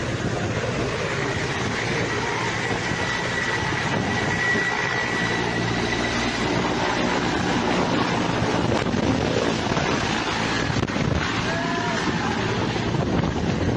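Rushing floodwater making a loud, steady, even noise throughout, with a voice calling out briefly near the end.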